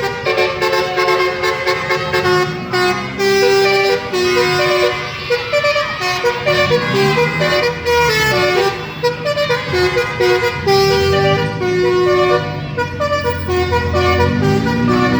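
Telolet bus horn, a set of multi-tone horns playing a tootling melody of stepped, held notes. Underneath, a low engine sound rises and falls several times.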